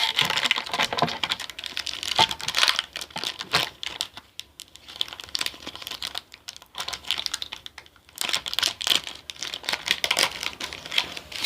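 Foil wrapper of a Pokémon card booster pack crinkling and crackling as it is handled and opened, in quick irregular clusters with short quiet gaps.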